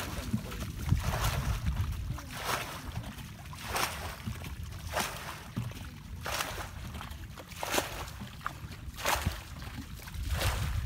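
Water splashing as a shallow muddy pool is bailed out with plastic buckets: a splash of scooped and thrown water about every second and a quarter, over a low rumble.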